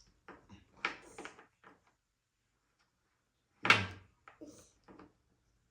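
Wooden toy fruit and a wooden toy knife knocking on each other and on a hard surface: a few light taps, then one louder knock about three and a half seconds in, followed by a few softer taps.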